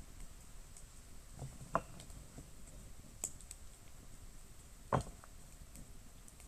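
Firewood crackling in a small metal firewood stove: sparse sharp pops and ticks over a low, quiet background, the loudest pop about five seconds in.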